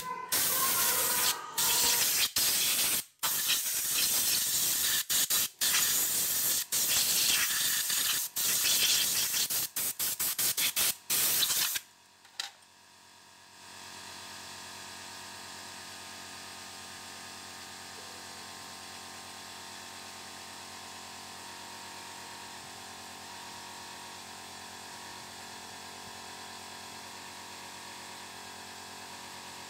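Compressed-air blow gun hissing in many short, on-off blasts as it blows dust out of a scooter's CVT clutch housing, stopping about twelve seconds in. After that only a faint steady hum remains.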